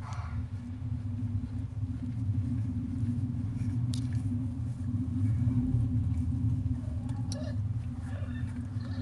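Mother cat purring, a steady low rumble that does not let up, with a couple of faint clicks over it.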